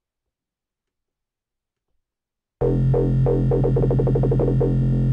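Silence, then about two and a half seconds in, a dubstep wobble bass from the Native Instruments Massive software synth starts: a deep held bass note pulsing rhythmically under its LFO, whose rate is mapped to the controller's mod wheel.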